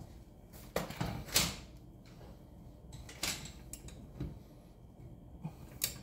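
Click-type torque wrench on a car wheel's lug nuts: a few sharp clicks and knocks, the loudest about a second and a half in. The click is the wrench signalling that the nut has reached its set torque and needs no more tightening.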